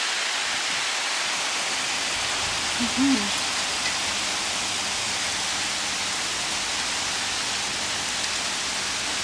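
Rain mixed with hail falling steadily on paving and grass: a dense, even hiss. A brief low voice-like sound about three seconds in.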